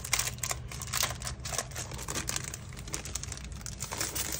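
Packaging around a 6x6 scrapbook paper pad crinkling and rustling as it is handled, in quick, uneven crackles.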